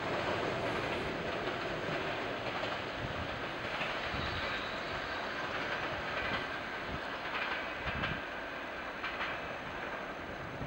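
Suburban train's carriages rolling away along the track, the wheels clicking over the rail joints, the rumble fading slowly as the train recedes.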